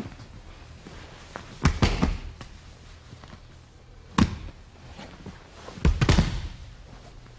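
Bodies and hands thudding onto a padded gym mat as two people grapple, with scuffing in between: three bursts of thumps, about two, four and six seconds in.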